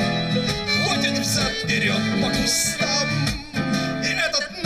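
Live bard-style folk song played on stage through a PA: strummed acoustic guitar and fiddle with a singing voice.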